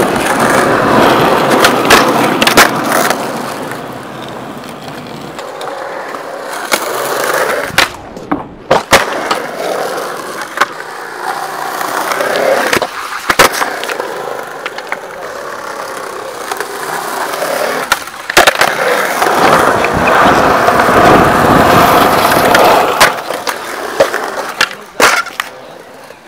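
Skateboard wheels rolling on a concrete skatepark surface, with repeated sharp clacks of the board hitting the concrete in tricks and landings. The rolling noise stops abruptly now and then as one clip cuts to the next.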